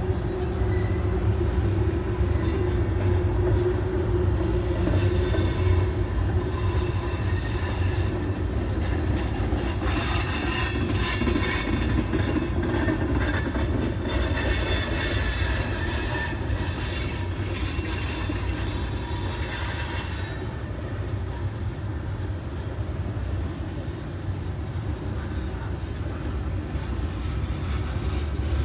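Norfolk Southern freight train rolling past with a steady low rumble from the cars. From about ten seconds in, high-pitched wheel squeal rises over it for roughly ten seconds, then dies away while the rumble goes on.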